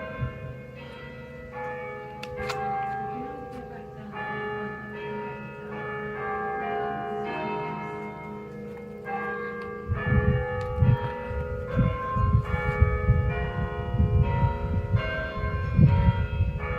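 Church tower bells chiming a hymn tune, one note struck after another, each ringing on under the next. From about ten seconds in, a low rumbling noise is heard under the bells.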